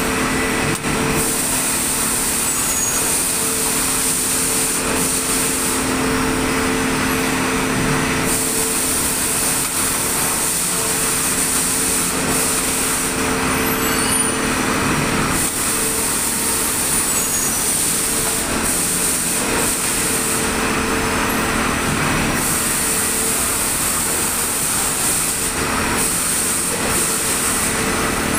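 Tile-making plant machinery running steadily: a constant mechanical hum under a high hiss that fades out for a couple of seconds at a time, about every seven seconds.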